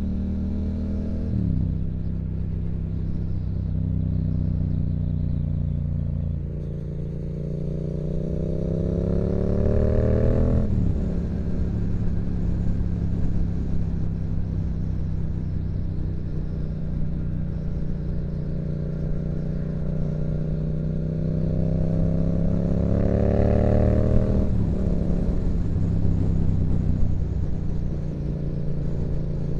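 2016 Yamaha MT-07's 689 cc parallel-twin engine running through a Yoshimura exhaust while riding. The revs climb under throttle and drop sharply three times, as at gear changes: about a second and a half in, about ten seconds in, and about twenty-four seconds in.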